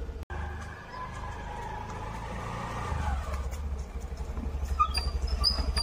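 Motor scooter engine running, with a whine that falls in pitch over the first few seconds. A few short high chirps come near the end.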